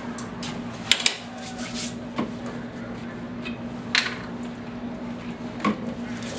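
Scattered light clicks and clinks of a barber handling his small tools and items, with a few sharper ones about one, two, four and nearly six seconds in, over a faint steady hum.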